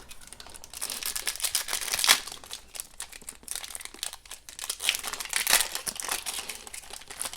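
Foil wrapper of a hockey-card pack being torn open and crinkled by hand, a dense run of crackling with louder rips about two seconds in and again near the middle-to-end.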